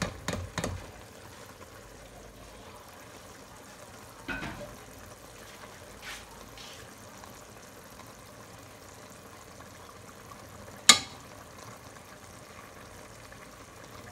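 Utensils knocking and scraping against a nonstick pot as cooked chicken pieces are spooned and spread over layered rice, over a faint steady hiss. A single sharp knock about eleven seconds in is the loudest sound.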